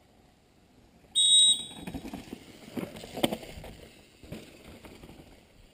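A short, shrill whistle blast about a second in, followed by the crunch and rattle of a downhill mountain bike's tyres on the dirt track, with a knock about three seconds in.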